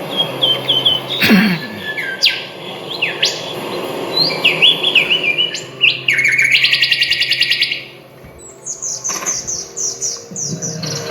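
Several songbirds chirping and singing. A fast, rattling trill comes about six seconds in and lasts nearly two seconds, and a run of short, falling high notes follows near the end.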